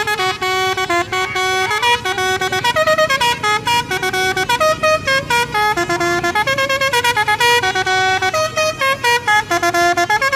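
Multi-tone musical bus horn (an Indonesian "telolet" horn) playing a quick melody of stepped notes, sounding over and over with brief breaks.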